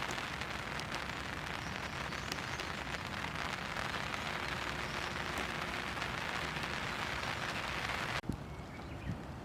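Steady rain falling on a surface, with scattered individual drops; about eight seconds in it cuts to quieter, duller rain.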